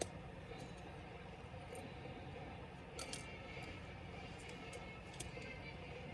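A few faint clicks and light taps of small parts and tools being handled while a laptop is taken apart: one near the start, a short cluster about three seconds in and one near the end. A steady low hum lies under them.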